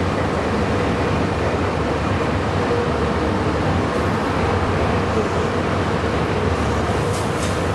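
Meitetsu 9500 series electric train running, heard from behind the driver's cab: a steady rumble of wheels on rail with a low motor hum.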